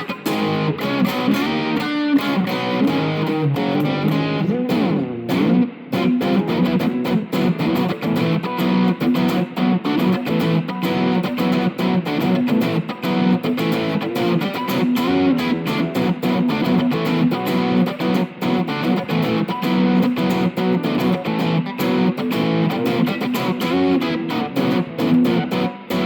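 Electric guitar played through a Yamaha THR10II amp on its Lead setting, a fast, busy run of picked notes. About five seconds in the notes bend in pitch, and there is a brief gap just before six seconds.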